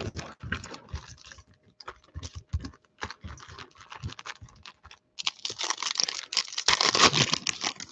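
Foil-wrapped football card packs clicking and tapping as they are shuffled and stacked on a tabletop. From about five seconds in, one pack crinkles loudly as it is gripped and torn open.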